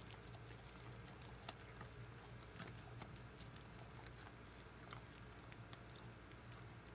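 Faint wet squishing and soft scattered ticks of a spatula stirring thick, cooked hot-process soap batter in a slow-cooker crock, mixing in yogurt.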